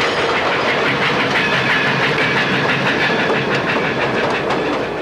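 Toy electric train rolling past close by on three-rail track: a steady, dense clatter of its wheels over the rail joints.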